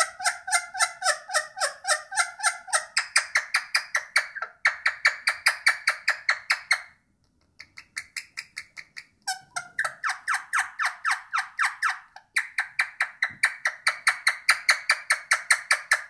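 Indian ringneck parakeet clucking: a fast, even run of short clucks, about four to five a second, that stops briefly about seven seconds in and again around twelve seconds.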